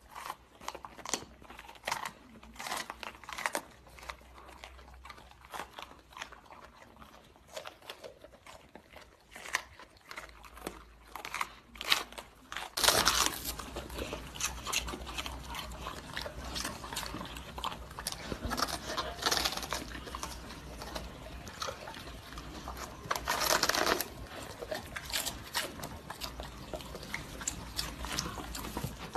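Golden retriever puppies crunching and chewing raw green bell peppers in scattered sharp bites. From about thirteen seconds in the crunching turns louder and denser as they bite and tear into cabbage leaves.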